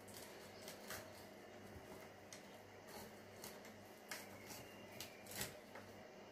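Faint, scattered ticks and taps of a filleting knife working along a perch on a plastic cutting board, with a sharper tap near the end, over a low steady hum.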